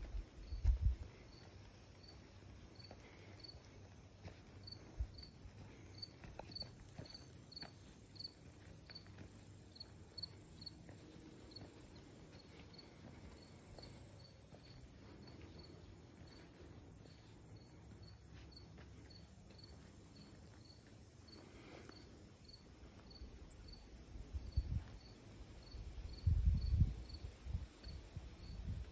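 A cricket chirping steadily in a fast, even rhythm of about two high chirps a second. Low rumbling thumps on the microphone about half a second in and again near the end are the loudest sounds.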